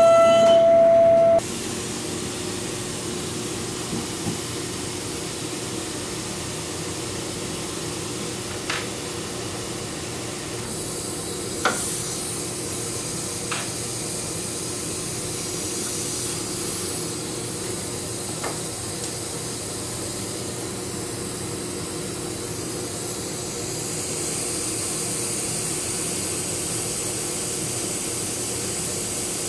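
Pocket NC v2-50 desktop CNC mill: for the first second and a half the spindle is cutting 6061 aluminium with a steady high whine, then it cuts off suddenly. After that a steady hiss with a few faint clicks.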